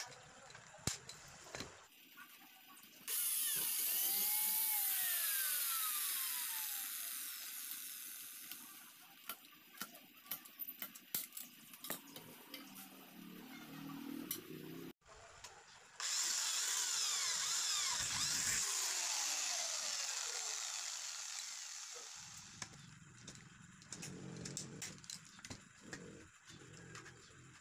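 Sharp clicks and taps of hand snips and aluminium strip being cut and handled on a workbench. Twice, a loud hissing, whining noise with falling pitch starts suddenly and fades away over about five seconds, loudest of all.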